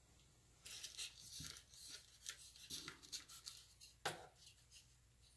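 Faint rustling and crinkling as the foam fuselage and wing of a small RC airplane are handled, with one light knock about four seconds in.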